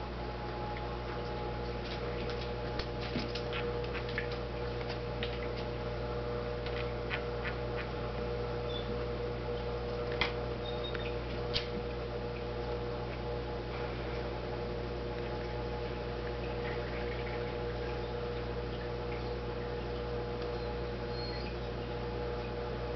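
Steady electrical hum of running aquarium equipment, with scattered light clicks and ticks and two sharper ones about ten and eleven and a half seconds in.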